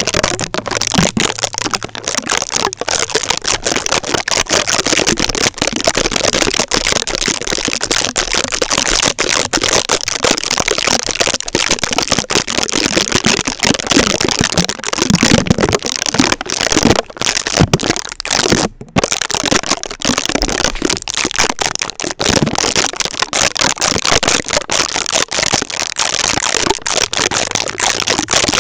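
Sticky tape stuck on a microphone, worked fast and aggressively, making a dense, loud crackling with many sharp clicks. The crackling breaks off for a moment about two thirds of the way through.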